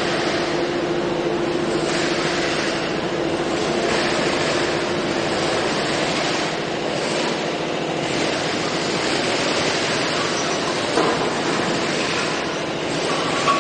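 Factory machinery running with a steady mechanical din, with a faint steady hum in the first half and a small knock about eleven seconds in.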